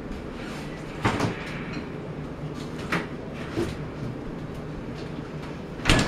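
Handling noise from a handheld camera: a steady low rumble with brief knocks about a second in, near three seconds, and a louder one near the end.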